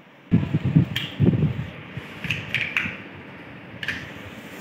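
Plastic TV remote handled in the hands: a cluster of dull knocks and rubbing in the first second and a half, then about five short sharp clicks.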